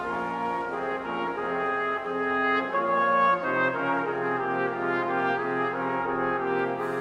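Symphony orchestra playing a slow passage of sustained chords, with brass prominent and the notes shifting every second or so.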